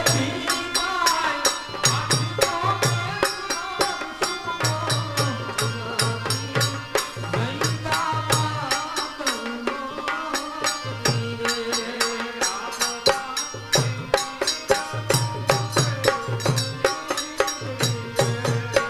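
Gujarati garba folk music with a fast, steady drum beat under a melody.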